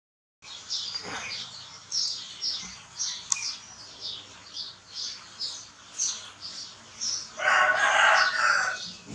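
Rooster crowing once, a call of about a second and a half, near the end. Repeated short high-pitched chirps run underneath.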